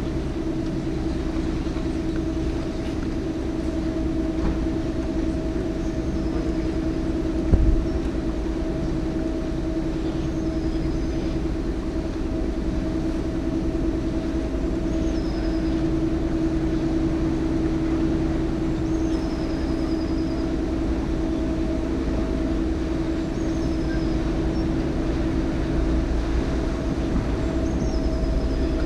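Canal tour boat's motor running steadily, a low rumble with a constant hum. There is a single knock about seven and a half seconds in.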